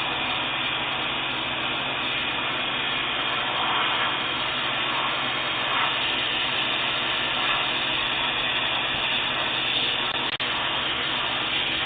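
Karcher K3 electric pressure washer running steadily, its spray hissing on concrete, heard through a Ring security camera's microphone. There is a brief dropout about ten seconds in.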